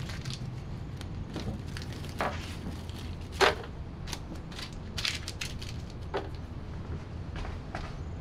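Hands fitting a plastic LED light strip and zip ties: scattered small clicks and crackles, with one louder click about three and a half seconds in, over a steady low hum.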